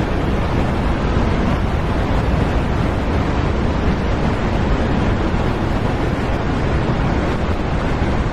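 Loud, steady rushing noise, even and unbroken, with no rhythm, tones or clicks.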